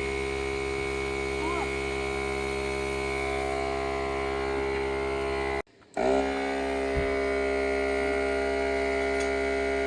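Steady electric motor hum, even and unchanging, cutting out for a moment just past halfway and starting straight back up.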